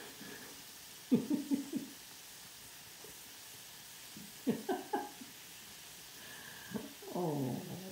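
Two puppies play-fighting. Short bursts of yaps and growls come about a second in and again around four and a half seconds, and a falling whine comes near the end, over the faint steady sizzle of frying.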